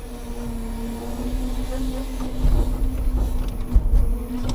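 Scania timber truck's engine and Loglift crane hydraulics running while pulpwood is loaded: a steady whine over a low rumble, with a few knocks about three to four seconds in.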